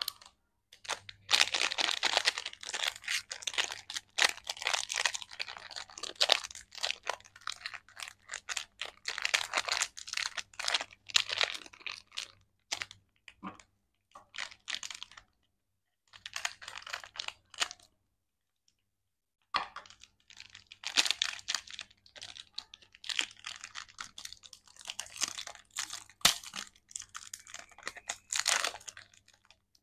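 A lollipop's plastic and foil wrapper crinkling and crackling as it is handled and torn open. The crackling comes in long stretches of rapid clicks, with a pause of about two seconds about two-thirds of the way through.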